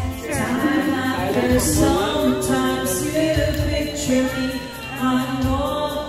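Karaoke: a woman singing into a microphone over backing music.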